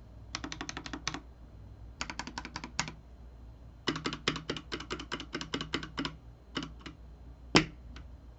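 Typing on an AKKO 3068B Plus mechanical keyboard with Jelly Black linear switches and stock keycaps, in short runs of rapid keystrokes separated by brief pauses, with one louder single key strike near the end. The two layers of dampening foam under the aluminium plate give the keystrokes a fairly deep sound.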